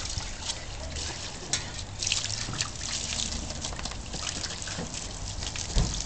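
Water trickling and splashing as a Cairn terrier plays in it, with a dull thump near the end.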